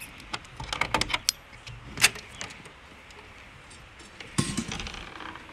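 A metal carabiner clicking and rattling against a steel door hasp as it is unhooked, with one sharp metallic click about two seconds in. A louder clatter about four and a half seconds in as the hasp swings free and the wooden door is opened.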